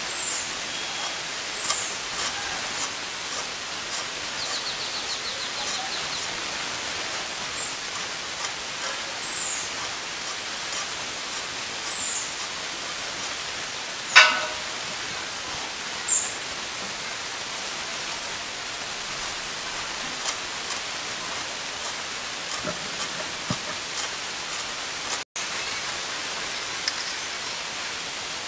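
Steady outdoor hiss with small birds chirping now and then: short, high calls that slide downward, every couple of seconds. One louder, sharp sound comes about halfway through, and there is a brief dropout in the sound near the end.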